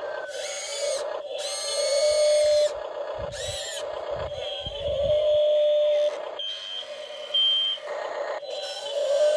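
Electric motors of a radio-controlled toy Volvo excavator whining in short runs of a second or so, stopping and starting as the arm digs and the upper body swings, with two short high beeps about two-thirds of the way through.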